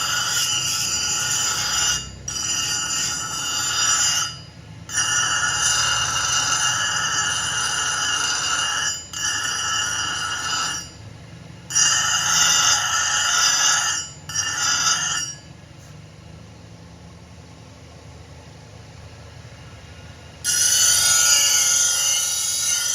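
Power grinder on steel: a loud steady high-pitched whine with hiss that stops and starts abruptly several times, with a quieter stretch in the second half.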